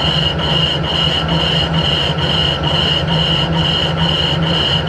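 Harrison 12-inch swing lathe running with a cast cylinder block turning on its faceplate while a boring bar cuts the bore: a steady low machine hum under a high ringing tone that pulses about three times a second.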